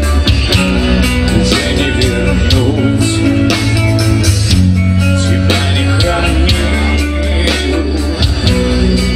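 Live power metal band playing loudly through a festival PA: distorted electric guitars, bass and drums driving a steady beat.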